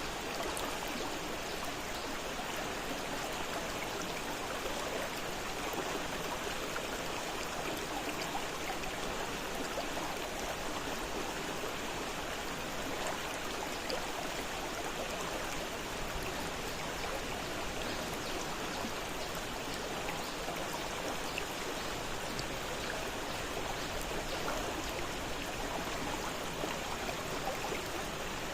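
Fast-flowing river water rushing steadily over rocks, an even, unbroken hiss with a little fine splashing.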